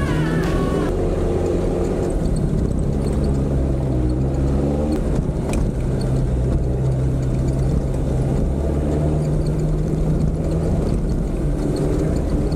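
The Toyota 4x4's engine running under load as it drives a rough forest dirt track, heard from inside the cabin. The engine pitch rises and falls with the throttle, and there is a single sharp knock about five and a half seconds in.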